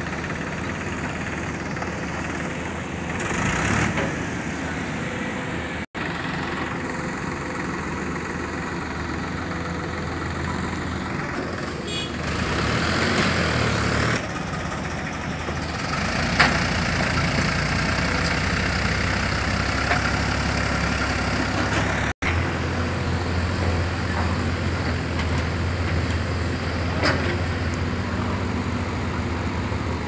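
Diesel engine of a JCB backhoe loader working mud, running steadily with the engine note rising and falling under load. A couple of sharp metal knocks stand out, one about halfway through and one near the end, and the sound cuts out for an instant twice.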